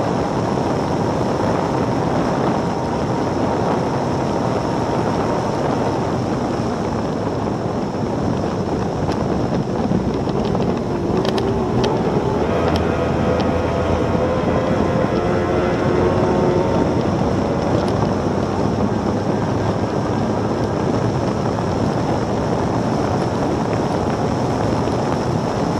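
S1-class racing powerboat at speed, heard from an onboard camera: heavy wind and water rush over the engine. About halfway through, the engine note drops and then climbs again as the boat slows to round a turn buoy and accelerates away.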